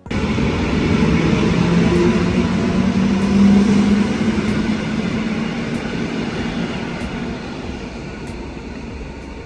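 Electric commuter train running past a station platform: a loud rumble with a low hum that swells a few seconds in, then slowly fades.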